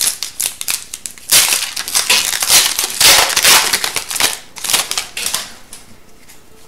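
Foil wrapper of an Upper Deck Series 2 hockey card pack being torn open and crinkled: dense, loud crackling for about four seconds, dying down near the end as the cards are drawn out.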